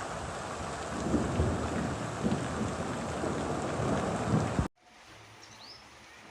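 Heavy rain pouring down, with deep rumbling swells from about a second in. The sound cuts off abruptly about four and a half seconds in, leaving a much quieter background with one faint short chirp.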